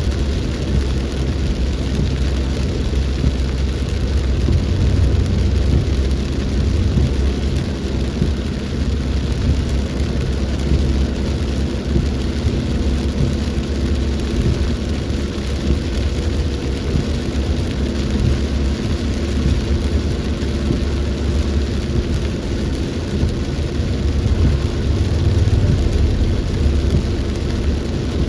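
Rainstorm: steady rain falling, under a deep rumble that rises and falls throughout.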